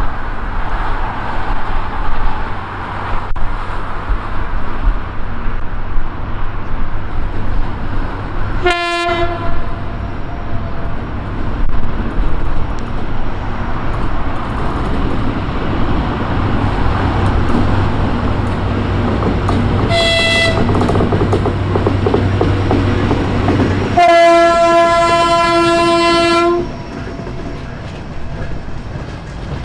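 C30-M diesel locomotive running with a steady low drone that grows louder as it pulls away, sounding its horn three times: a short blast about nine seconds in, a short higher-pitched blast about twenty seconds in, and a long loud blast of about two and a half seconds near the end.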